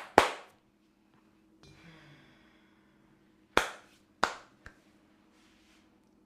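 Sharp, loud hand strikes from a barber's percussive head massage: one at the start, then two more about half a second apart some three and a half seconds in, followed by a faint tap. A soft rustle of hands on skin or hair comes between them.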